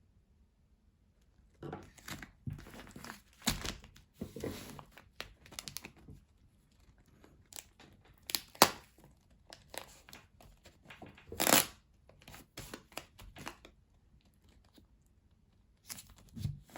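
Camo Gorilla duct tape being pulled and torn from the roll and wrapped around a plastic bag of rice, with crinkling of the bag between several sharp tearing sounds. It comes in separate bursts, with pauses at the start and near the end.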